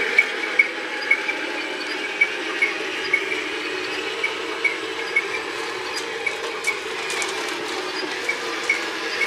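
RC M1A2 Abrams model tank driving over gravel: a steady drone from its drive motors and gearboxes, with a regular click about twice a second.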